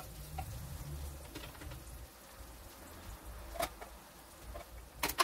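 Quiet kitchen handling sounds: a low rumble over the first two seconds, a light click about three and a half seconds in, and two sharp clicks or knocks just before the end.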